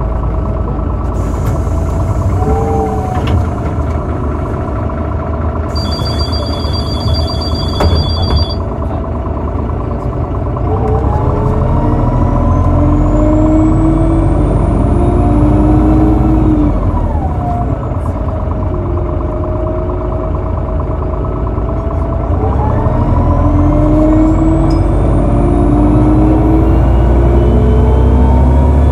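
Irisbus Citelis 18M articulated bus with a Voith automatic gearbox accelerating. The drivetrain whine rises in pitch from about ten seconds in, falls back at a gear change around seventeen seconds, then climbs again in the next gear. A short run of repeated electronic beeps sounds about six seconds in.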